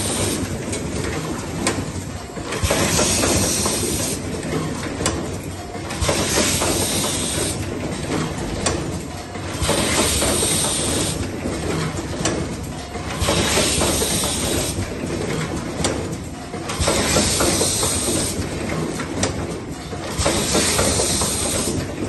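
Automatic power cord assembly machine running, with constant mechanical clatter and small clicks from its conveyor and actuators. A loud hiss of air from the pneumatic stations comes about every three and a half seconds, each lasting a second or two.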